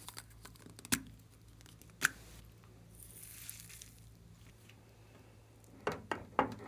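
Small egg-shaped plastic lip-balm pots being handled: a few sharp plastic clicks and taps, with a soft hiss about three seconds in and two more taps near the end.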